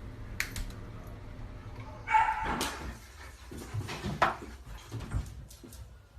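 A dog barks about two seconds in, among a few sharp clicks or knocks.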